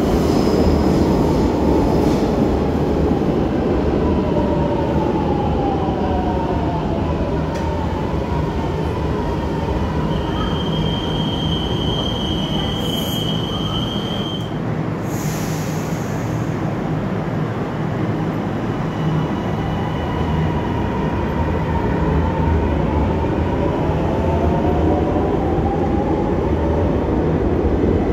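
Milan Metro ATM 900 series 'Meneghino' electric train slowing to a stop, the whine of its traction motors falling in pitch over the rumble of the wheels. A steady high tone sounds for about four seconds in the middle. Then the train pulls away, the motor whine rising again.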